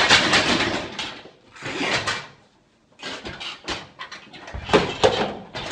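A man's loud, breathy cries in several bursts as he strains under a loaded barbell that has come down on his chest during a failed bench press. Sharp thuds near the end as he rolls off the bench and the bar and bumper plates shift.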